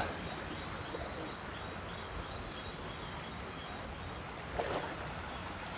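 Steady rush of water flowing through concrete tilapia raceways fed by running water, with a few faint bird chirps.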